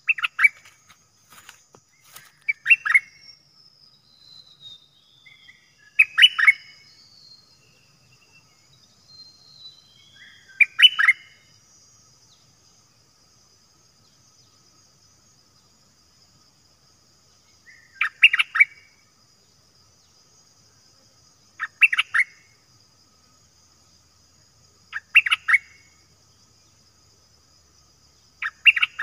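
Caged bulbul singing short loud chirping phrases, eight of them a few seconds apart, with fainter falling whistles in the first ten seconds. A steady high insect drone runs underneath.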